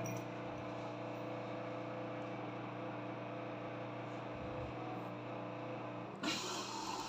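Ariston washing machine with a steady electrical hum. About six seconds in, a sudden hiss of water starts rushing in as the machine begins to fill.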